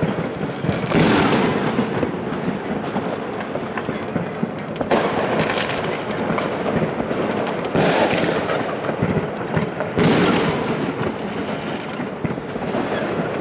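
Many New Year's Eve fireworks going off across a city: continuous crackling and popping, with four louder bangs about one, five, eight and ten seconds in, each echoing away.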